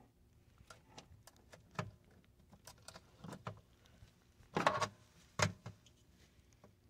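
Small clicks and taps of cable clamps being handled at a 12-volt battery's terminals as a power inverter is hooked up, with a louder short scrape about four and a half seconds in and a knock just after.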